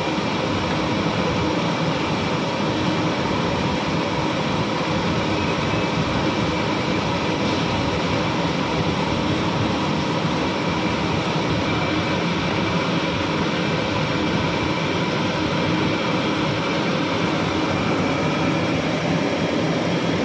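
Steady rushing noise of a high-pressure LPG burner heating a large aluminium pot of milk.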